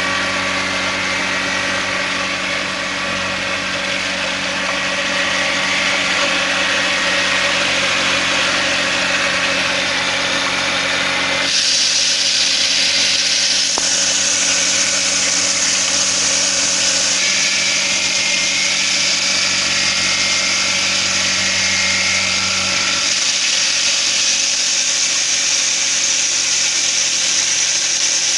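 Homemade grinder driven by a washing machine motor, running steadily with a motor hum and a rattling whirr. About eleven seconds in a harsher hiss rises over it, and near the end the low hum drops away.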